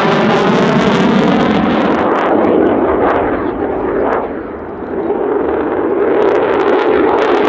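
Jet noise from a Polish Air Force F-16C's Pratt & Whitney F100 turbofan as the fighter passes overhead in a display, with a sweeping, phasing quality as it moves. The noise dips and dulls about four to five seconds in, then builds back up.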